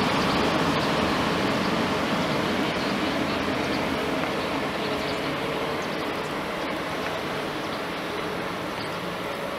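DB class 112 electric locomotive and its regional train pulling out of the station, the running and rail noise fading steadily as it moves away.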